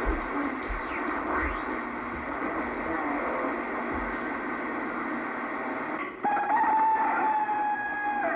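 CB radio receiver hiss and static between transmissions, with faint fading signals under it. About six seconds in, a station keys up and a steady, slightly falling tone with overtones sounds through the speaker for about two seconds.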